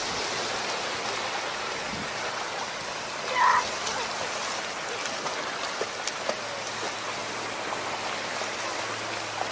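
Feet splashing and kicking through shallow seawater over a steady wash of water noise, with a brief voice sound about three and a half seconds in.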